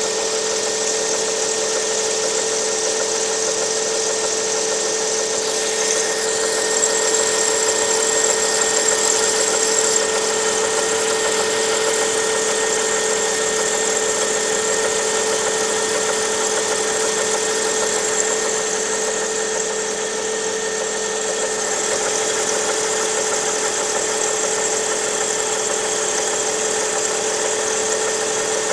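Lada Priora engine running steadily at idle, with a knock coming from around the water pump by the timing belt.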